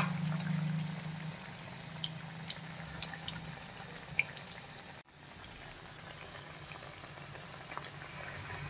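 Spinach pakodas (palak bhaji) frying in hot oil on medium heat: a steady sizzle with small crackling pops. A low hum fades out in the first few seconds.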